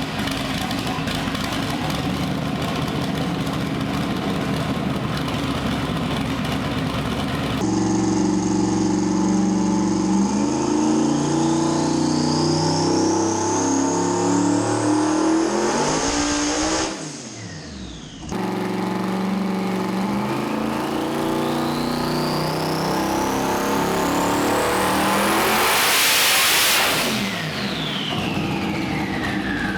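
Twin-turbo 5.3-litre LS V8 running on a hub dyno, then making a wide-open-throttle pull: revs climb in steps while the turbos' whine rises steadily in pitch. The sound drops out sharply about 17 seconds in, then climbs again to a high whine near the end before falling away as the throttle comes off.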